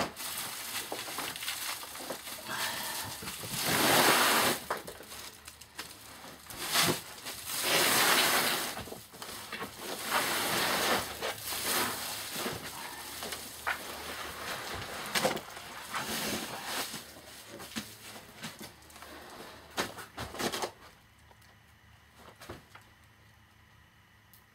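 Large sacks being dragged, lifted and shifted on a platform: rustling, scraping swishes of the sack fabric with small knocks, coming in several bursts and dying down near the end.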